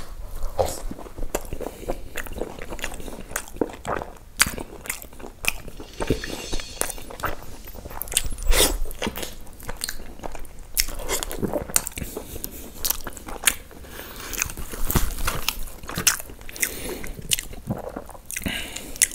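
Close-miked eating sounds of a person chewing pieces of butter chicken in thick gravy: wet chewing with many irregular lip smacks and mouth clicks.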